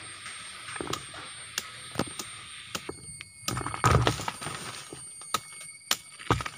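Machete blade working into the base of a sugar palm flower stalk. Scattered sharp clicks and knocks, with a louder, longer scrape about four seconds in.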